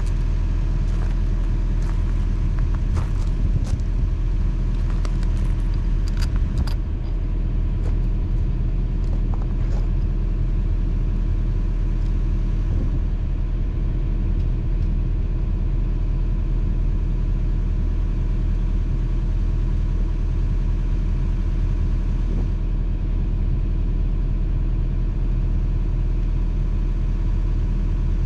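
Mini excavator engine idling steadily, with light metallic clicks and taps over the first ten seconds or so as the bucket-and-thumb mounting pin and linkage are handled.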